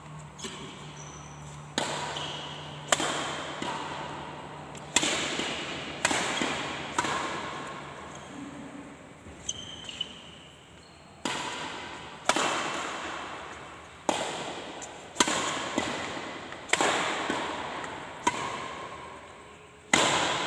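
Badminton rackets hitting a shuttlecock back and forth in a rally: a sharp smack every second or two, each one echoing off the hall's hard walls.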